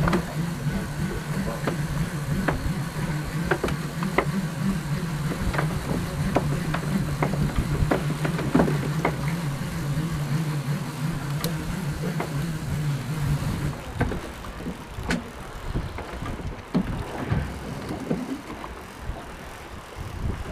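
A boat's engine runs with a steady low hum and then cuts off suddenly about fourteen seconds in. Irregular clicks and knocks from the tackle and deck sound over it and carry on after it stops.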